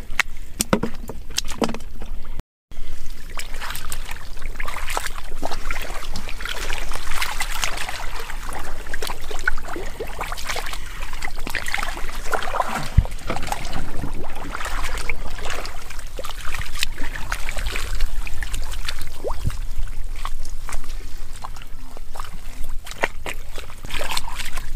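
Splashing and sloshing in shallow muddy water, with many irregular wet slaps and squelches. There is a brief dead-silent gap about two and a half seconds in.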